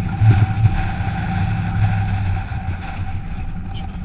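Ford Crown Victoria's V8 and tyres running steadily while driving on a snow-covered road, with a couple of louder thumps about half a second in.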